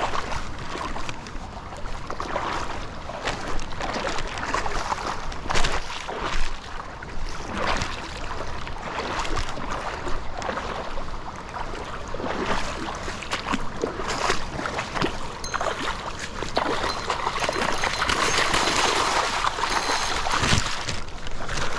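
Small river flowing, with irregular splashing and sloshing of water.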